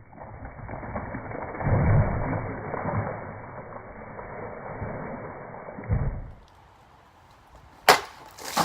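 Katana swung into a wooden 4x4 post: a muffled whoosh with heavy dull thuds, then two sharp knocks near the end.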